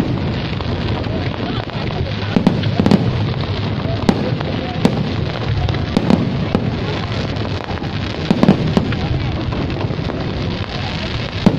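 Aerial fireworks bursting in a display: sharp, irregular bangs about once a second, over the steady noise of the watching crowd's chatter.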